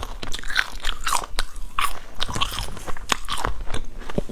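A person biting and chewing latiao, spicy gluten snack strips, with irregular crisp crunches and clicks.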